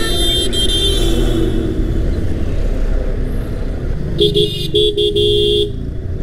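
Vehicle horns honking in town traffic over the steady rumble of a motorcycle's engine and wind: one horn sounds for about a second and a half at the start, then a horn gives a few short toots and a longer blast about four seconds in.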